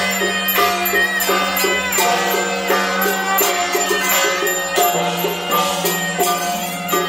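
Chinese traditional ceremonial music: a melody over a steady held drone, with regular light percussion strikes.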